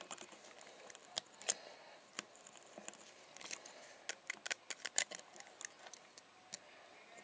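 Lock pick and tension wrench working the pins of a brass Yale 50 mm padlock: irregular small metallic clicks and scrapes, coming quicker about three to five seconds in.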